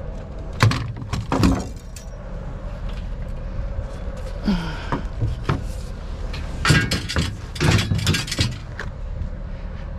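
Metal scrap being loaded into a pickup truck bed: a kick scooter and metal poles knock and clatter against the bed and each other in several separate bangs and rattles, over a steady low rumble.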